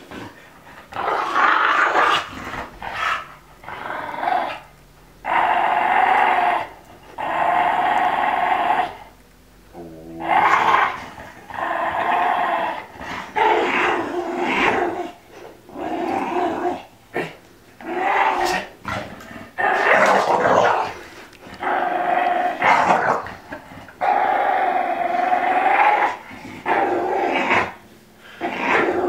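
Olde English Bulldogge making long, pitched growling noises over and over, each bout lasting one to two seconds with short breaks between, while she holds her ball in her mouth.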